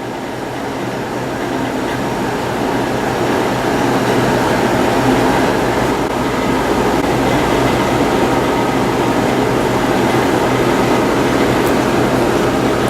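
Steady mechanical rumble with a low hum, growing louder over the first few seconds and then holding steady.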